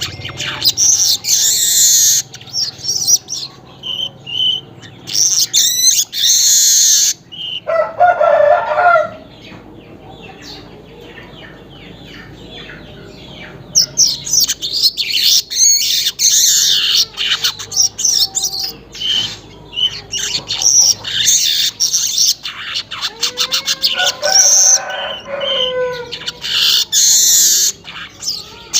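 Manyar weaver bird chattering in fast, scratchy, high-pitched runs of notes, with a pause of a few seconds near the middle. A lower, drawn-out call sounds twice in the background.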